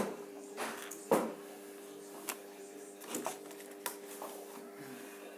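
Irregular clicks, knocks and light scrapes, about six in all, the sound of copper wire being handled and wound onto a microwave oven transformer. A steady low hum runs underneath.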